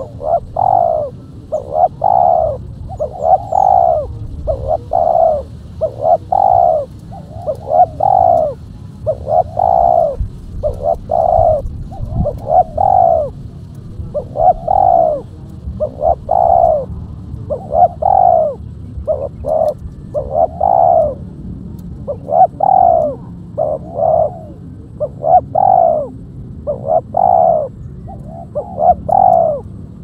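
Spotted dove (tekukur) cooing: a continuous run of loud, rounded coo notes, about one a second, some in close pairs.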